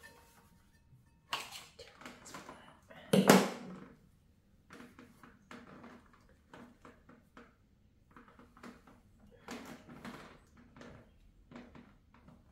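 Irregular handling noises of hands and tools at a pottery wheel: short rustles and light knocks, with one louder sharp clatter about three seconds in.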